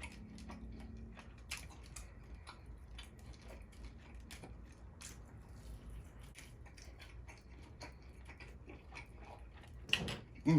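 Close-miked chewing of steak: soft, irregular wet clicks and smacks of a mouth working a bite of meat. A brief louder sound near the end.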